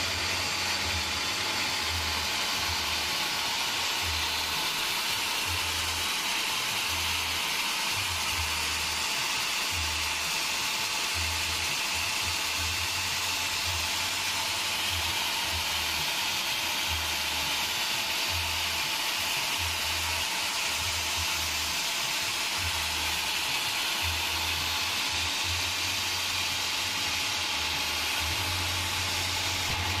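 Large band sawmill running: the wide blade and machine give a steady hiss, with a low rumble that comes and goes irregularly.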